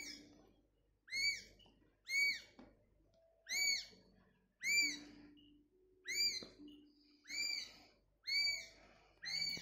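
Seven-day-old kitten mewing: a string of about nine short, high-pitched mews, roughly one a second, each rising and then falling in pitch.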